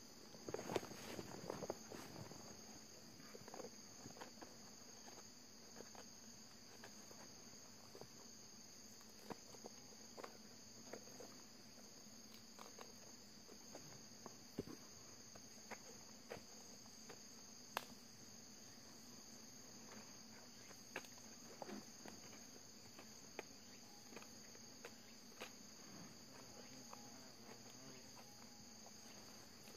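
Faint, steady high-pitched chirring of forest insects, with scattered light clicks and rustles of dry leaves close by.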